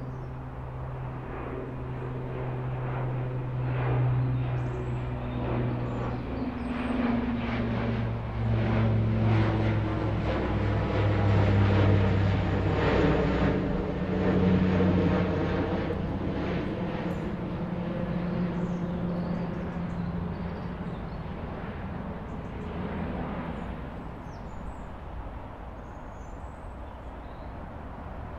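An unseen engine passing by. It grows louder to its peak about twelve seconds in and then fades, its pitch slowly dropping as it goes.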